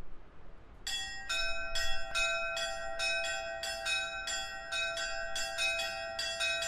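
Church bells ringing in a quick repeated peal, about two to three strikes a second, starting about a second in, each strike ringing on under the next.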